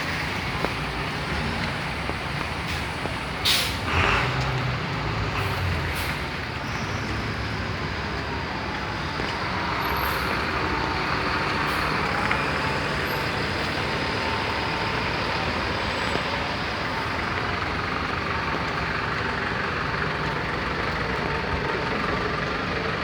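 Road traffic in a standstill jam: a steady mix of vehicle engines and road noise, with a short sharp hiss about three and a half seconds in.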